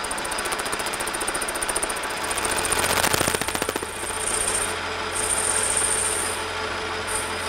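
Metal lathe running while a tool bit faces off the end of a model steam engine cylinder mounted on an arbor: a fast, steady rattling clatter that gets louder about halfway in, with a high whine coming and going in the second half.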